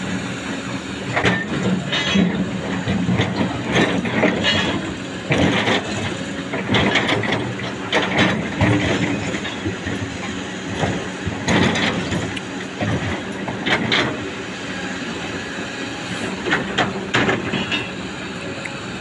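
Excavator running, its diesel engine droning steadily under repeated metallic clanks and knocks.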